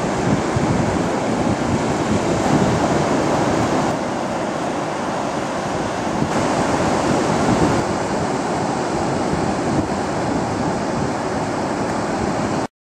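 Steady wash of ocean surf on a beach, with some wind on the microphone; it cuts off abruptly near the end.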